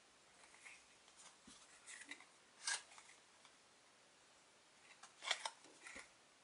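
Stiff trading cards handled one at a time, giving short dry papery swishes and clicks as each card slides off the stack. Two of the swishes, about a third of the way in and near the end, are louder than the rest.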